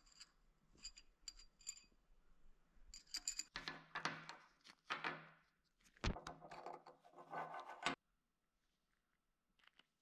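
Faint clinks, taps and clatter of small metal transmission parts being handled, with a sharper knock about six seconds in.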